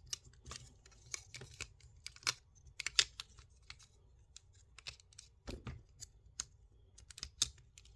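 Irregular small plastic clicks and ticks from a Transformers Alchemist Prime action figure's joints and parts being folded and pegged together by hand during its transformation.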